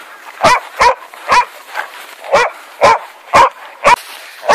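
Hunting dogs barking repeatedly at a wild boar they are holding at bay: a run of sharp, loud barks, about two a second, starting about half a second in.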